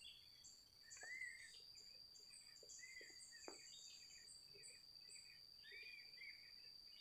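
Faint outdoor ambience: an insect drone holding one steady high pitch, with birds chirping in short, repeated calls. A few soft clicks come about a second in and again about three and a half seconds in.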